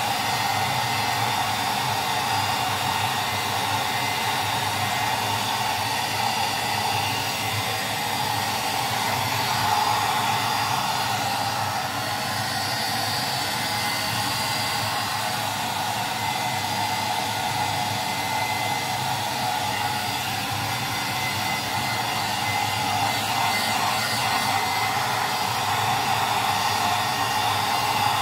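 A handheld hair dryer running steadily, blowing air over a dog's coat.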